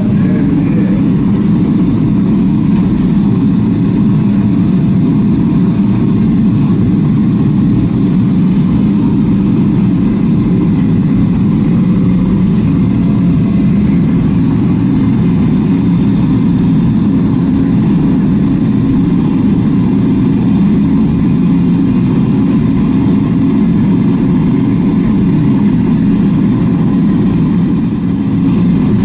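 A machine running steadily with a loud, even low drone that does not change.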